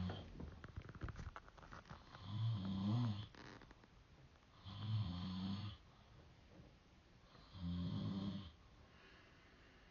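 A sleeping man snoring in a steady rhythm: three snores, each about a second long, coming every two and a half to three seconds, with a few faint clicks in the first couple of seconds.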